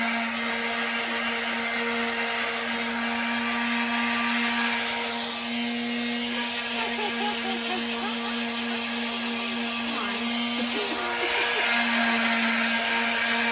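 Corded electric sander running steadily with a constant hum while sanding a wooden chair part smooth of splinters.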